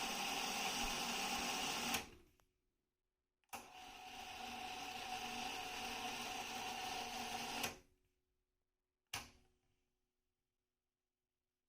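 Sony TC-K555 cassette deck's transport winding the tape at high speed with a steady whir, which stops with a click about two seconds in. After a short pause a click starts another fast wind that grows a little louder and stops with a click near eight seconds, and a single mechanism click follows about a second later.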